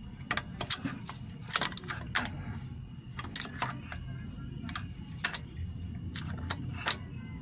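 Scattered sharp metallic clicks and clinks of hand tools working on an engine, over a low steady hum.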